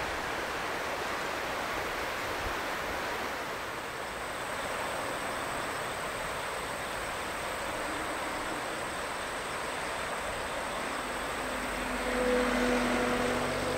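Steady rushing of wind and river water, with a faint steady high insect trill. About twelve seconds in, a low hum swells slightly as the distant Boeing 737-700 comes in on final approach.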